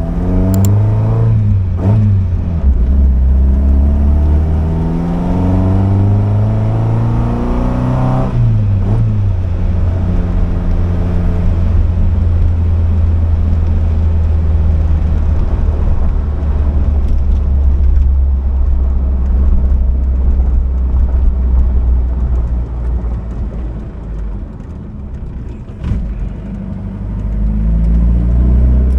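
Pilgrim Sumo (AC Cobra replica) engine and exhaust under way. The revs climb several times through the gears in the first nine seconds or so, then settle into a steady low drone while cruising. The engine eases off and goes quieter a few seconds before the end, with a single click, and then picks up again.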